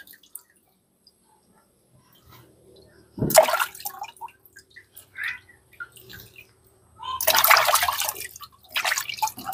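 Water splashing and sloshing in a metal pot as a peeled taro corm is rubbed and rinsed by hand, in short bursts: one about three seconds in and a longer run of splashing near the end.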